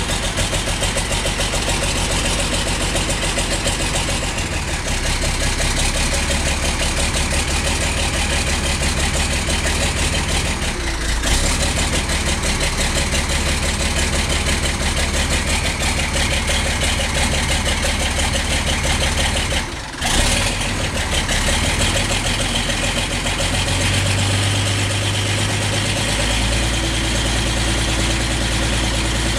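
Finn-Ursus 1224's turbocharged six-cylinder diesel engine running steadily, still cold just after a cold start at −7 °C, heard from inside the cab. Its note shifts briefly about 11 and 20 seconds in and changes again in the last few seconds.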